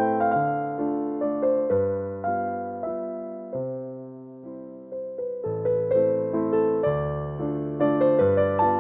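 Background piano music: a gentle melody of struck notes over low bass notes, thinning out midway and picking up again.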